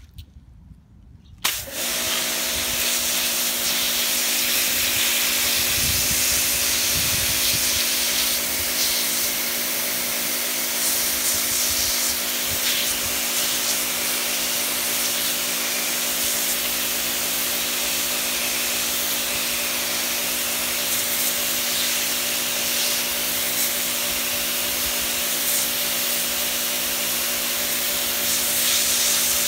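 Kärcher pressure washer starting up about a second and a half in. It then runs steadily: a hum from its motor and pump under the loud hiss of the water jet spraying onto stone paving.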